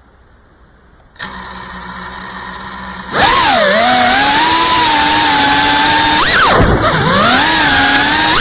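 Brushless motors and propellers of a GEPRC Cinelog 35 FPV cinewhoop drone: they spin up to a steady idle hum about a second in, then throttle up for takeoff about three seconds in into a loud whine whose pitch dips and climbs again with each throttle change.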